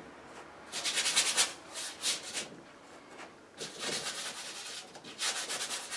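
Wide flat bristle brush scrubbing oil paint onto a stretched canvas in four short, scratchy strokes.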